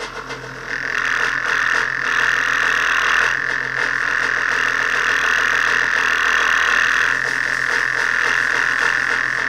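Rally car's engine idling low and steady, with a loud, even buzzing hiss that comes in about a second in and holds.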